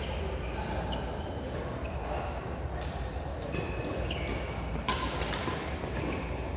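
Badminton rally in a large sports hall: a string of sharp racket hits on the shuttlecock, the loudest about five seconds in, with short high squeaks of court shoes on the floor, all echoing in the hall.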